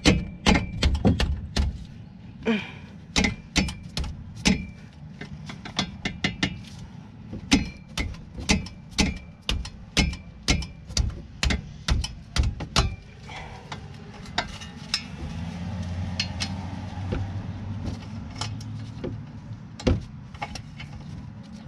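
Hand ratchet on a socket extension clicking in quick runs of sharp metallic clicks as a brake caliper mounting-bracket bolt is worked loose by hand. About two-thirds of the way in the clicking thins to a few scattered clicks over a low steady hum.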